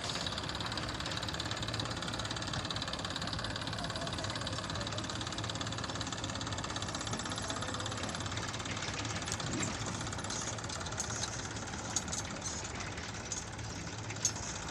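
Diesel engine of heavy farm or construction machinery running steadily with a low, even knock, with a couple of short sharp clicks near the end.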